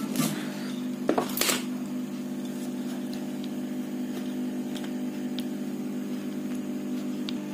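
Steady electric motor hum throughout. Over it, a few sharp clicks and rubbing sounds about one to one and a half seconds in, as a plastic earphone housing is gripped and worked through a cloth, then faint scattered ticks.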